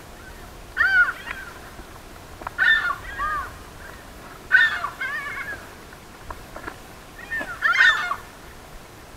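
Crows cawing: four bouts of short calls, mostly in pairs, a couple of seconds apart.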